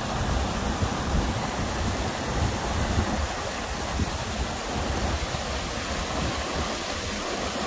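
Muddy flash-flood water rushing and churning over a road crossing, a steady loud rush of water.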